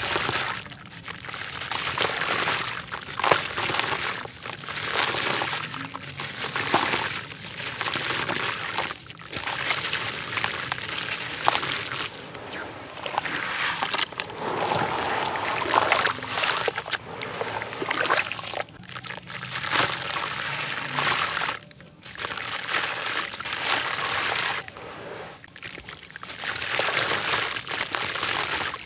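A dried, grainy red-dirt block crumbled by hand into a basin of water. Gritty crumbs pour and patter into the water in repeated surges, and hands swish through the muddy water.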